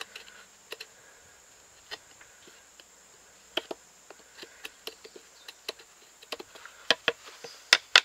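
Knife tip cutting and shearing wood fibres out of a square hole in a green stick: scattered small clicks and snaps, coming faster and louder near the end.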